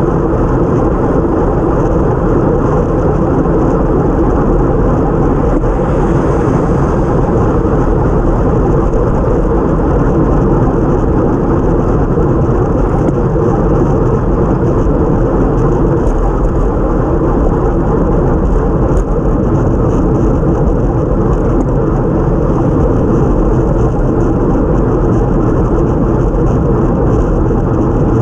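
Steady rush of wind on a bike-mounted action camera's microphone while riding at speed, with the hiss of tyres on a wet road mixed in.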